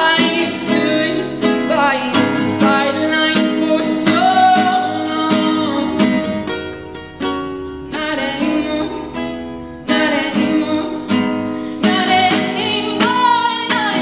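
A girl singing while strumming a nylon-string classical guitar, with a brief lull about seven seconds in.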